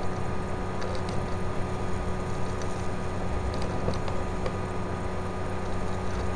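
Steady background hum and hiss of the recording setup: a low rumble with a few faint steady tones, broken by a few faint short clicks.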